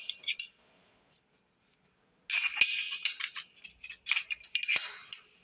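Short metallic clinks and rattles of a steel element wrench and metal parts on an electric water heater, as a new heating element is tightened. A few clicks at the start, a pause of about two seconds, then a busier run of irregular clinks.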